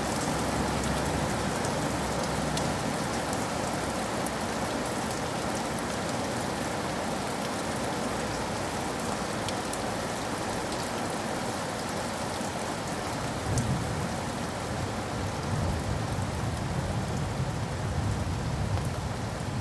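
Steady rain falling on hard surfaces, with scattered close drop ticks over the even wash. About two-thirds of the way in, a low rumble swells up under the rain and stays to the end.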